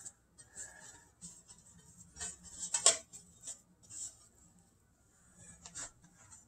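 A barbecue brush scraping cold butter onto the inside of a loaf pan: faint, irregular bristle strokes, the loudest about three seconds in.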